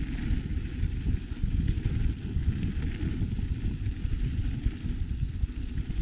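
Wind buffeting the camera microphone over the rattle and rumble of a mountain bike riding over a dirt trail, a dense, steady, choppy low rumble throughout.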